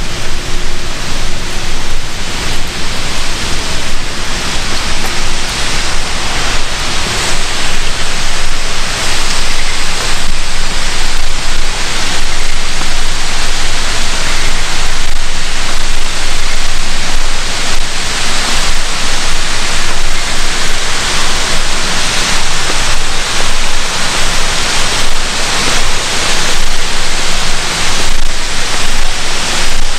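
Loud, steady rush of water, like a waterfall or fast river, with no breaks.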